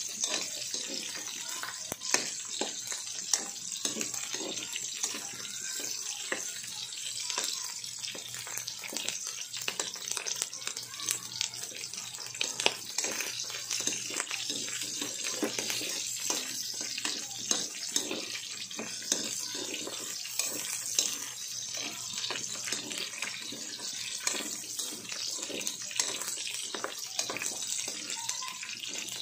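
Cubed pork belly sizzling in its own rendering fat in a metal wok: a steady hiss with frequent sharp pops and clicks as a metal spatula scrapes and turns the pieces against the pan.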